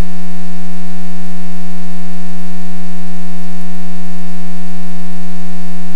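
Loud, steady electrical buzz on the aircraft's radio/intercom audio feed: one unchanging low hum with many overtones that masks everything else, switching on and off abruptly.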